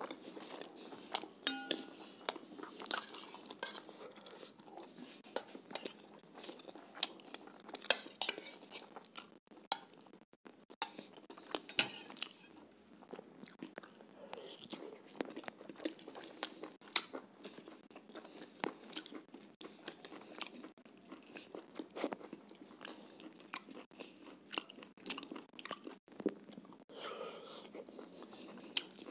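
Close-miked chewing and biting as a man eats chicken curry with roti by hand: wet mouth sounds with many irregular sharp crunches and clicks.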